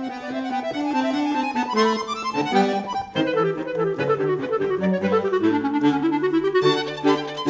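Chamber quartet of clarinet, violin, cello and accordion playing a quick passage of many short notes over held low notes, with the accordion and clarinet to the fore.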